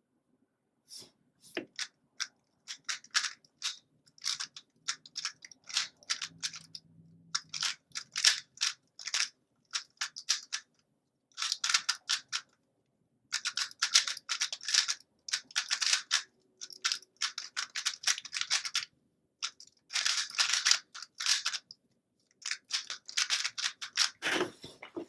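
A 3x3 Rubik's cube being speed-solved: bursts of rapid plastic clicks as the layers are turned, broken by short pauses, with a low thump near the end.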